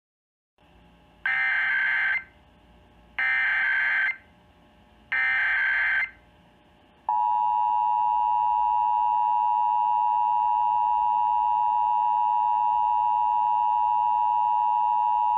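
Emergency Alert System SAME header: three loud one-second bursts of warbling digital data tones about a second apart. About seven seconds in, the EAS attention signal starts: a loud, steady two-tone alert chord (853 and 960 Hz) held for about eight seconds.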